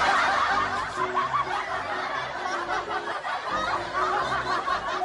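A canned laugh track of a crowd laughing and chuckling, laid over light background music with a simple melody.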